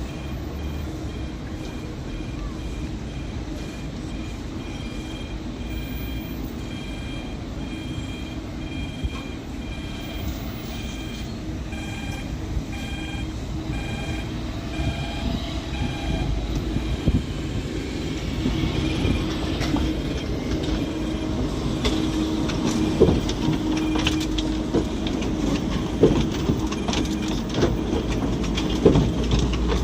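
Translohr rubber-tyred tram running, heard on board: a steady rumble with a repeating two-tone beep about once a second for several seconds, then the running noise grows louder, with clatter and sharp clicks in the last third.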